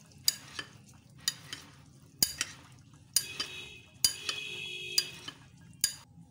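Steel spoon stirring a wet chickpea, potato and yogurt mix in a glass bowl, knocking and scraping against the glass in sharp clinks, with a ringing scrape for about two seconds in the middle.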